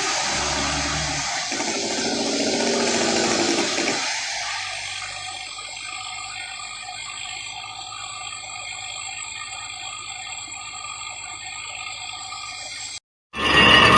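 Loud rushing, water-like noise for about four seconds, then a quieter, steadier sound with steady tones. It cuts out briefly near the end.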